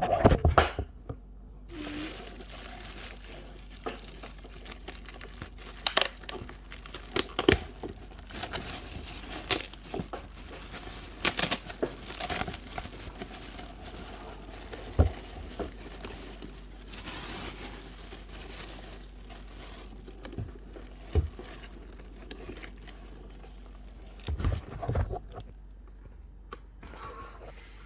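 Packaging being unwrapped by hand: irregular crinkling and rustling with sharp crackles and some tearing, busiest in the first two-thirds and sparser near the end.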